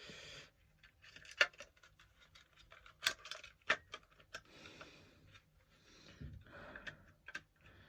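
Small, irregular sharp clicks and soft rustling from a smoke alarm's plastic casing being handled.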